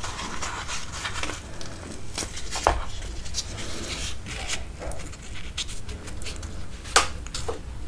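Fried poori being torn apart by hand, its crisp puffed crust crackling, with a sharper crack about two and a half seconds in and again near the end, as the piece is dipped into chole curry.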